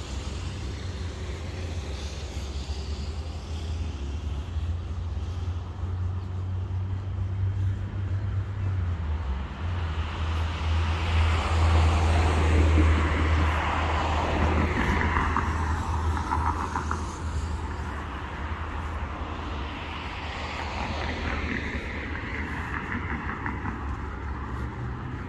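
Road traffic passing: the hiss of a vehicle swells and fades, loudest about twelve seconds in, with a weaker swell near the end, over a steady low rumble.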